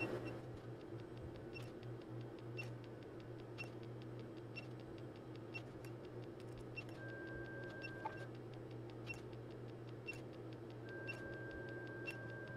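Faint sharp clicks about once a second from a transient (surge) generator firing 3000-volt test pulses into a multimeter's input, over a faint steady hum. A steady high tone sounds for about a second past the middle and starts again near the end.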